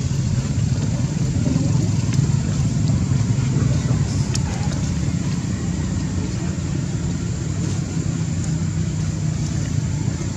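Steady low rumble of outdoor background noise, even in level throughout.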